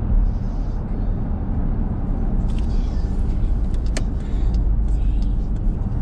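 Car driving at steady speed on a paved road: a constant low rumble of engine and tyre noise, with a single sharp click about four seconds in.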